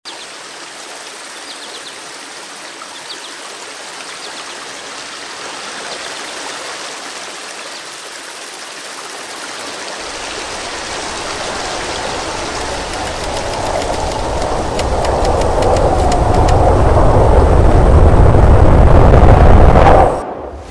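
Water from a small stream running over rocks; about halfway through, a low rumbling roar of tornado wind joins in and builds steadily louder until it cuts off suddenly near the end.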